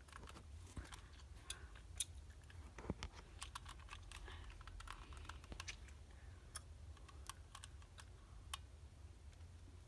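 Faint, irregular light clicks and taps, several a second in places, of small hard objects being handled, over a low hum.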